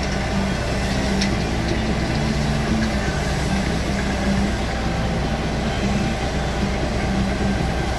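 An engine running steadily at an even speed: a deep constant hum with a wavering higher drone above it.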